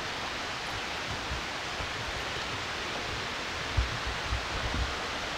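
Steady rush of a rocky woodland stream flowing over stones, with a few low bumps on the microphone about four seconds in.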